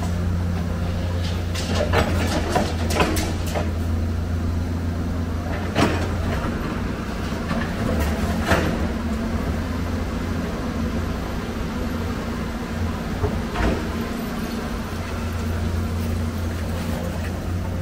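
Heavy diesel engine of an excavator at work, running steadily, with scattered sharp metallic clanks and knocks as scrap metal is handled, several in the first few seconds.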